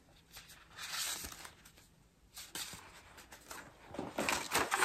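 Soft rustling and light tapping of small paper cards and packaging being handled, becoming busier near the end.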